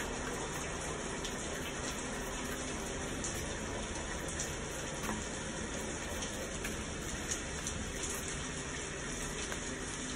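Recorded rain, played as a background ambience track: a steady, even hiss of rainfall with a few faint ticks of drops.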